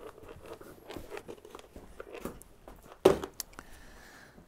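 Scattered rustling and small clicks of things being handled, then one loud knock about three seconds in, as a blue plastic storage box is set down on the wooden workbench.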